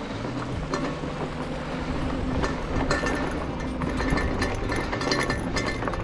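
An e-bike rattling and clattering over rough off-road trail, with irregular clicks and knocks over a steady rumble, busier in the second half.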